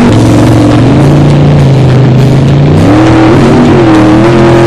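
Racing jet boat's engine running hard at high revs. Its pitch drops about a second in, holds steady, then climbs again at about three seconds.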